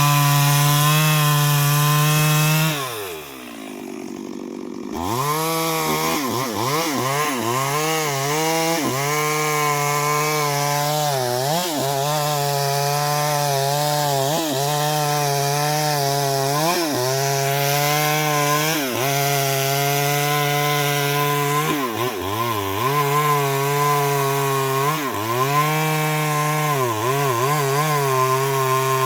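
Chainsaw running at high revs while cutting into a large tree, its pitch sagging again and again as the chain bogs down in the wood and then recovering. About three seconds in the throttle is released, and the saw drops to idle before revving back up into the cut.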